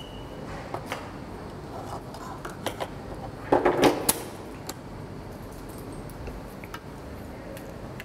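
Scattered clicks and knocks of a lens focus motor and its mount being handled as the motor is swapped for a new one, with a cluster of louder clattering knocks about three and a half seconds in. A brief faint high beep sounds at the very start.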